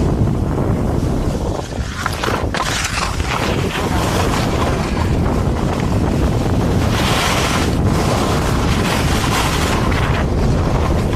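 Wind buffeting the microphone of a camera carried by a moving skier, a steady loud rumble, with stretches of skis hissing over the snow.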